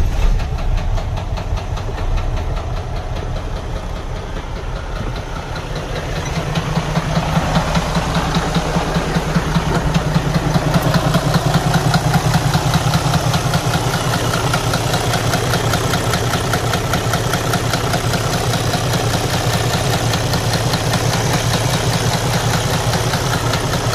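Detroit DD13 inline-six diesel idling just after start-up with a loud internal knocking clatter, louder from about six seconds in. The noise is the sign of camshaft damage that threw the engine out of timing.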